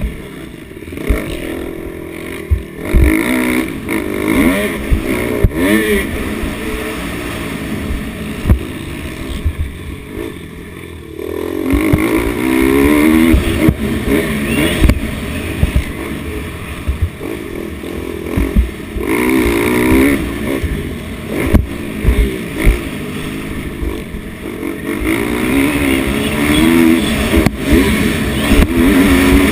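Dirt bike engine heard from on board, revving up and falling back again and again as the rider works the throttle through the gears, with sharp knocks here and there. The throttle eases off for a couple of seconds about a third of the way in, then the engine climbs again.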